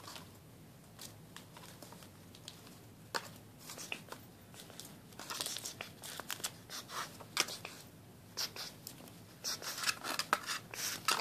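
Rainbow lorikeet chewing and tearing at a cardboard tube toy: irregular crackles and rustles, sparse at first and busier from about halfway.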